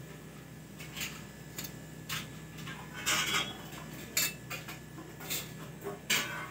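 Several short, irregular clinks and scrapes of steel kitchen utensils: a spoon in a steel oil bowl and a metal spatula against the iron tawa and a steel plate.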